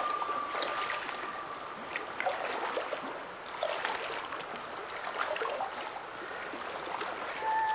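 Water splashing and sloshing as a hiker wades through a shallow river with trekking poles, in irregular small splashes from steps and pole plants. A held note of background music fades out in the first second or so, and a new sliding note begins near the end.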